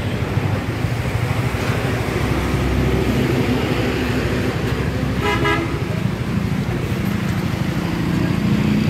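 A vehicle horn gives one short toot of about half a second midway through, over a loud, steady background of outdoor noise.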